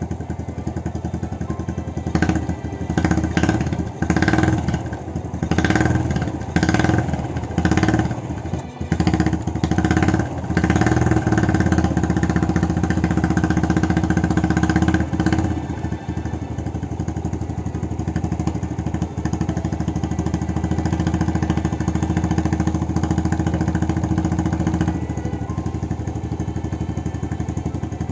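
Honda Astrea Legenda's small single-cylinder four-stroke engine running. Its throttle is blipped several times in the first half, with the revs dropping back each time, then it settles into a steady idle. This is the engine running again after a throttle slide jammed by a scrap of old wire insulation was freed.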